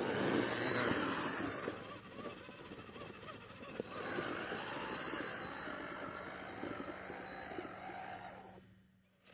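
Small electric RC crawler's motor and gearbox whining under throttle, with tyres grinding over rocks, in two stretches: one ending about a second in and a longer one from about 4 s, fading out near the end.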